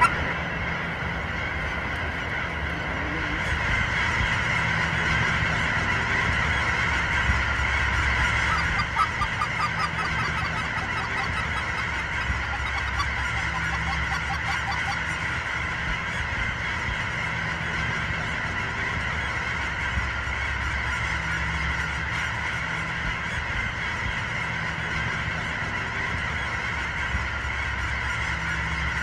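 A huge flock of cackling geese calling all at once: a dense, unbroken chorus of high honking and yelping, with a low rumble underneath.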